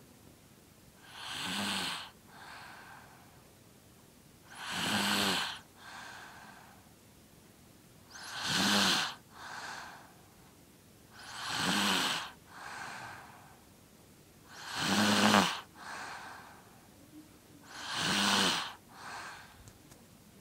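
A five-year-old girl snoring loudly in her sleep: six loud, buzzing snores on the in-breath, about one every three seconds, each followed by a softer breath out.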